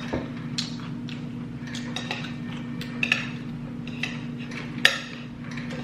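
Utensils clinking and scraping against dishes while eating, with scattered sharp clinks, the loudest about three seconds and about five seconds in, over a steady low hum.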